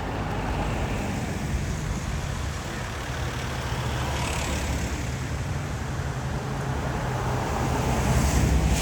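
Road traffic noise: a steady low rumble of passing vehicles that slowly grows louder, peaking near the end as a vehicle comes close.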